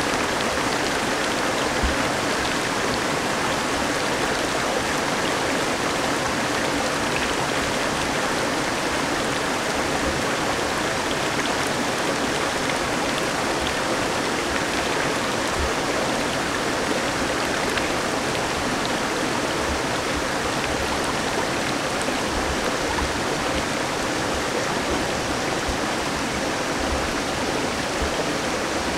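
Shallow mountain stream running over rocks, a steady, unbroken rush of water.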